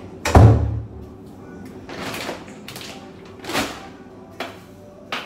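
Long-handled broom sweeping a tiled floor in a few swishing strokes. A loud thump comes just after the start, and sharp knocks follow near the end.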